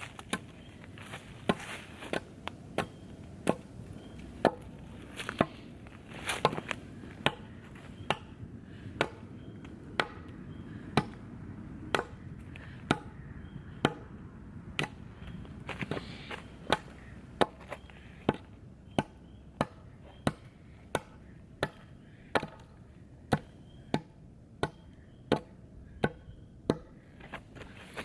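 Axe chopping a tree limb, sharp wooden strikes coming steadily a little over once a second.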